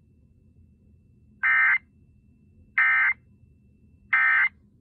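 Emergency Alert System end-of-message tones: three short, identical bursts of SAME digital data buzz, evenly spaced about a second and a quarter apart, marking the end of the alert. A faint low hum sits underneath.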